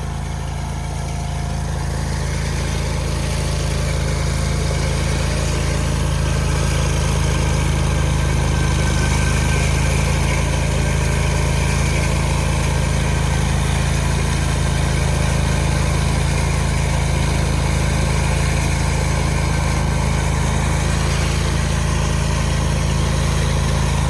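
An engine on a concrete pour runs steadily with a low drone. It grows a little louder over the first few seconds, then holds.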